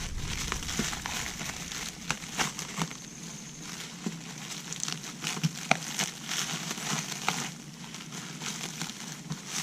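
Plastic shrink wrap being pulled and torn off a metal frame by hand, crinkling and crackling in irregular bursts.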